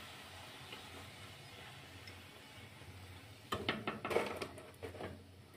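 A faint steady hiss from hot frying oil in a kadai. About three and a half seconds in comes a second and a half of clinks and clatter of metal utensils against the pan.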